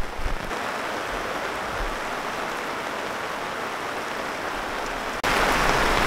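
Heavy rain pouring steadily, a dense even hiss that jumps abruptly louder about five seconds in.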